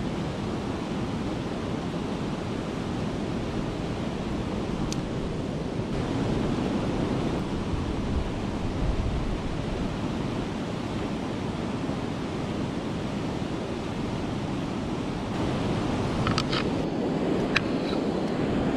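Steady rush of white water pouring over a river weir, with some wind on the microphone. A few sharp clicks come near the end.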